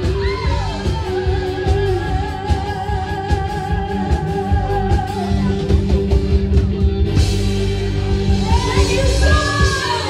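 Live band with electric guitar and a female vocalist, a singer holding one long note with wide vibrato over the band. In the last few seconds a hissy wash comes in and audience members whoop over the music.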